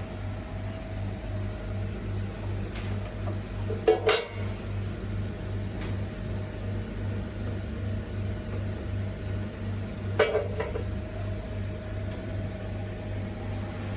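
Metallic clanks from handling the rotary CNC router's plywood mounting while the curved rotary die board is fitted or removed: a sharp double clank about four seconds in and another about ten seconds in, each with a short ring. Under them runs a steady, low pulsing machine hum.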